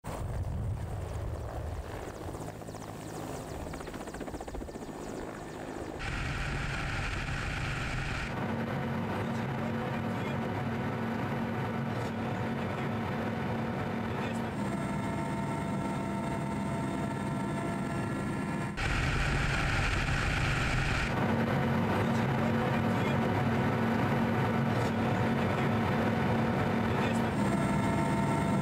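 Mi-8-family transport helicopter running with its rotor turning: a low rumble as it lifts off, then a steady drone with a whine of several fixed tones. The sound changes abruptly a few times.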